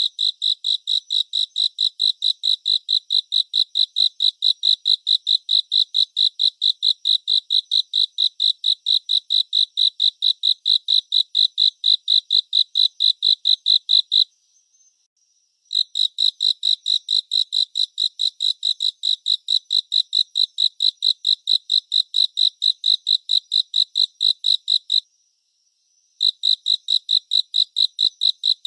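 A cricket chirping in a steady, even rhythm of about four high-pitched chirps a second, pausing twice for a second or so.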